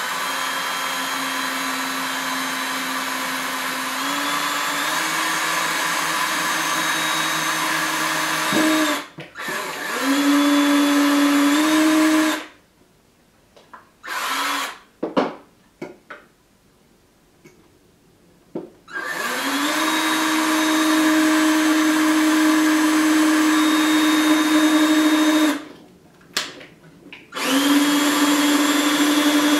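Electric drill with a 7/64-inch bit boring through a GoPro flat mount into a metal clamp. The motor whine runs in several spells that stop and start again, stepping up in pitch at times.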